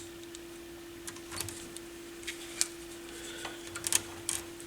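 Scattered small clicks and taps of tools and parts being handled while soldering the legs of a replacement battery onto a circuit board, over a steady hum.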